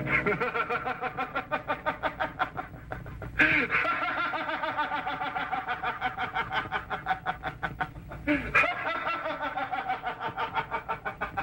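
A man laughing heartily and at length, a quick run of 'ha-ha' pulses. It breaks off briefly and starts again louder about three and a half and eight and a half seconds in.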